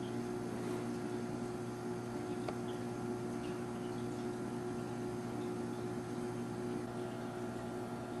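Steady low electrical hum with several unchanging tones, and a faint tick about two and a half seconds in.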